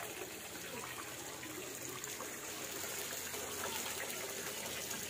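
Water running steadily from an outdoor tap into a plastic basin.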